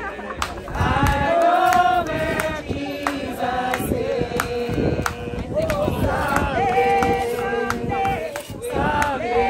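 A crowd of mourners singing a hymn together, many voices holding long notes.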